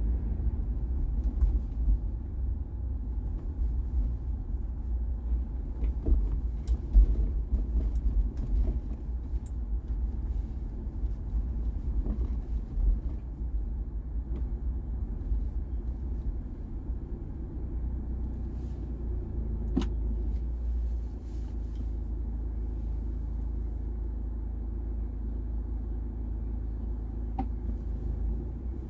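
Car driving: a steady low rumble of road and engine noise, with a few faint clicks.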